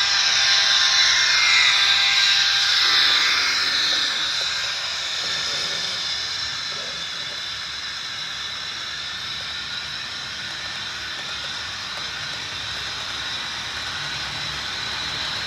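Model freight train running past: louder for the first few seconds as the diesel locomotive goes by, then a steady rolling hiss of the freight cars on the track.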